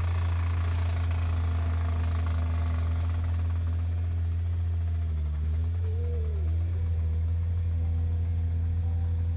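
Nissan GT-R idling steadily with its transmission noise, which the owner asks about as a bad transmission or flywheel. About five seconds in, the engine note dips and wavers briefly before settling again.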